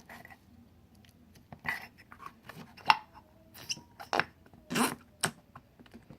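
Hands handling slime and its plastic containers: irregular clicks, crinkles and squishes, with a sharp click about three seconds in and a longer rustle near five seconds.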